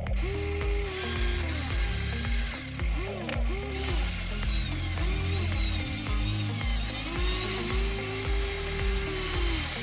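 Gear motors of a Huina 593 1/14-scale RC excavator whining with a gritty, ratchety gear noise. They run in several short bursts whose pitch rises, holds and falls as the controls are worked. Background music with a steady bass beat plays underneath.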